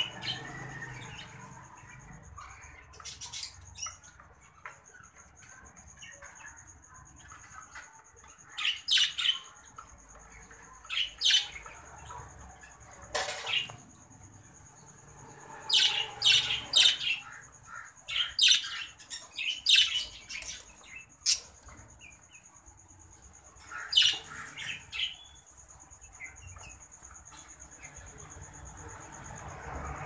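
Exhibition budgerigars squawking and chirping in short harsh bursts, several quick calls to a burst, with irregular gaps and the busiest run around the middle. A faint steady high tone runs underneath.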